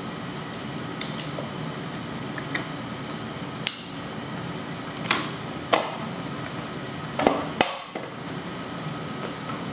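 Scattered clicks and knocks of hands fitting plastic tubing into a heart-lung machine's roller pump head and tubing holders, about seven in all and loudest in the second half, over a steady background hum.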